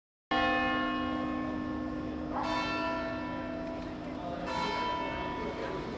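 Church bell tolling: three strikes about two seconds apart, each ringing on and slowly fading into the next.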